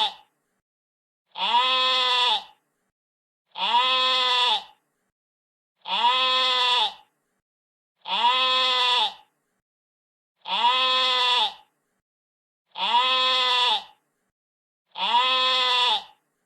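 Sheep bleating: the same call, about a second long, repeats about every two and a quarter seconds, with dead silence between calls. Seven full bleats, plus the end of one just as the sound begins.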